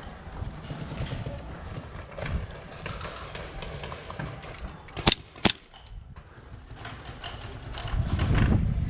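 Two sharp airsoft gun shots about half a second apart, a little past the middle, over steady rustling and movement noise from the player's gear.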